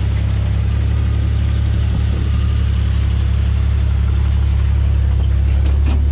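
Jeep Grand Cherokee's engine running at low revs, a steady low hum, as the SUV crawls slowly over a rock ledge.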